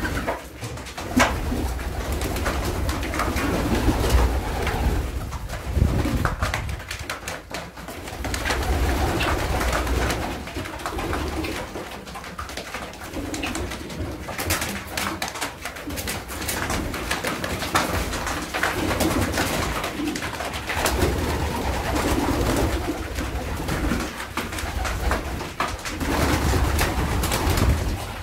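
Flock of racing pigeons cooing steadily, with many sharp clicks of beaks pecking grain from a wooden trough feeder.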